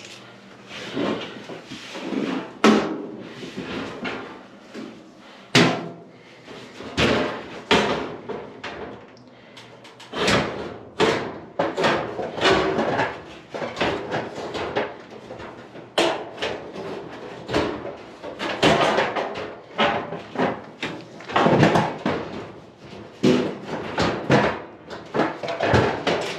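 Repeated knocks, clanks and scrapes of clothes dryer cabinet parts being handled and hooked into place.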